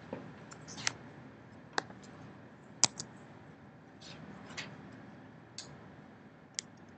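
Sharp, irregular clicks and taps of a laptop being operated at close range, about one a second, the loudest about three seconds in.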